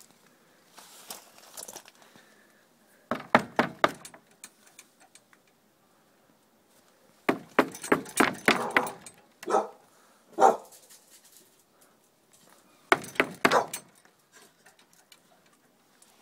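Seven-month-old blue Staffordshire bull terrier guard-barking at a gate: about four bouts of quick, loud barks with short pauses between, at a person it has not yet recognised.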